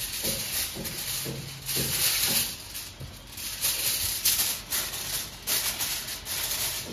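Aluminium foil crinkling and rustling in irregular bursts as it is handled and spread over a cooking pot to seal it, over a steady hiss.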